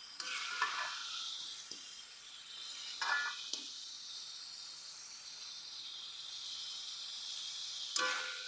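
Spicy chili-sauced beef bones frying in a pan with a steady sizzle. A metal utensil strikes and scrapes the pan briefly near the start, about three seconds in, and again near the end.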